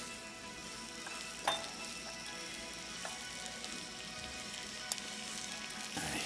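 Food sizzling steadily in pans on a stovetop, with a sharp clink about a second and a half in and a couple of lighter clinks later.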